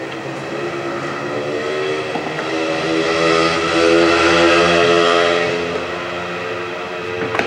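An engine running at a steady pitch, growing louder to a peak about four seconds in and then easing off, with a click near the end.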